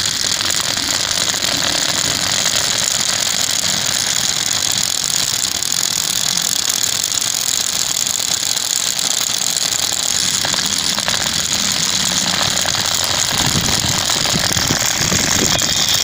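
Homemade mini jackhammer running, its bit chattering rapidly against concrete as it bores a hole: a steady, even mechanical rattle.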